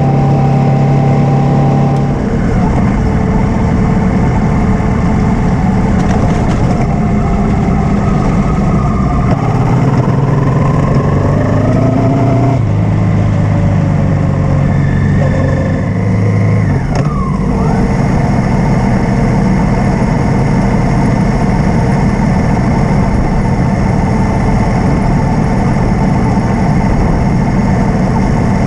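Honda Africa Twin 750's V-twin engine running under way, heard from close by on the bike, over steady wind and road noise. Its pitch shifts a few times, about two seconds in, around the middle and again a little later, as the revs change.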